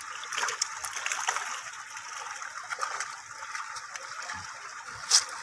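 Pond water splashing and dripping as fish are scooped out of a net enclosure with a hand net, with many small splashes and one sharp, louder splash about five seconds in.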